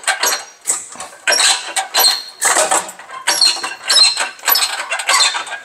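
Repeated squeaks and metallic clinks, every half second or so, as a shop crane on a chain lifts the cylinder head off an S44 diesel engine block: the head sliding up off its studs, the chain and the crane squeaking under the load.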